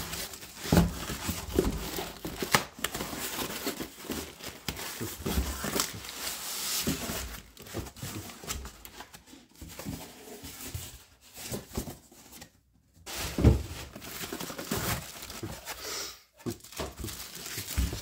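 Bubble wrap and packing paper crinkling and rustling as they are handled, with a few louder knocks and a brief pause about two-thirds of the way in.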